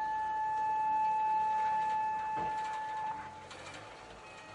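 Outdoor tsunami warning siren holding a single steady tone, which stops about three seconds in.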